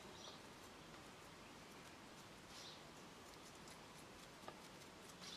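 Near silence: room tone, with a few faint soft rustles and one small click.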